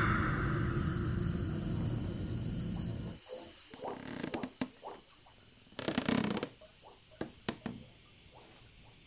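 Night-time crickets chirping steadily in a pulsing high trill, two to three chirps a second. A low rumble under them cuts off abruptly about three seconds in, and a few faint knocks follow.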